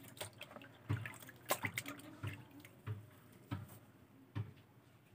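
Fish being cleaned with scissors over a basin of water: irregular wet clicks and snips, with small drips and splashes.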